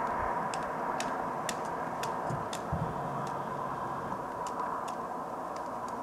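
Pileated woodpecker pecking at a tree trunk: sharp, irregular taps about one to two a second, over a steady background hiss.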